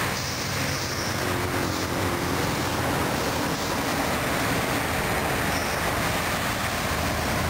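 Steady highway traffic noise: engines and tyres of cars, motorcycles and heavy trucks passing on a busy multi-lane road.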